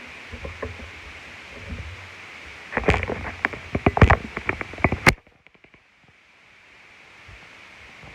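Toy pistol being reloaded by hand: a few light handling clicks, then a rapid run of sharp clicks and rattles lasting a couple of seconds that cuts off suddenly.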